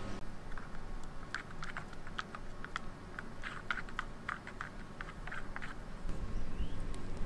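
A small spoon stirring coffee in a paper cup: a run of light, irregular clicks and taps, several a second, stopping about six seconds in.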